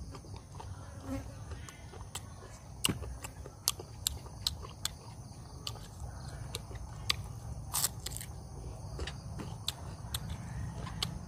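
A steady chorus of crickets and other insects, with scattered sharp clicks and smacks from someone chewing and biting grilled squid, one longer crackle a little after the middle.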